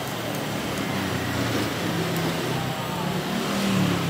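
Street traffic noise, with a motor vehicle engine running steadily from about two seconds in.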